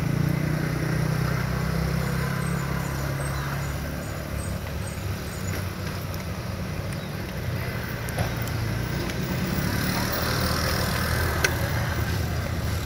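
Steady rumble of road traffic, with a vehicle engine's low hum standing out in the first few seconds.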